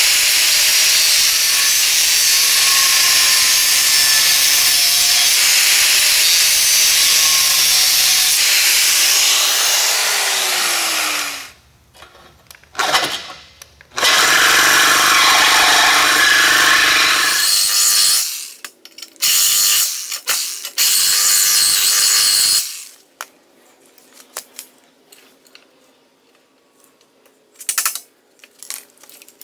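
A small grinder cutting into the old subframe bushing for about eleven seconds, then spinning down with a falling whine. After that a reciprocating saw (Sawzall) cuts out the rest of the bushing in several short bursts, the longest lasting about four seconds.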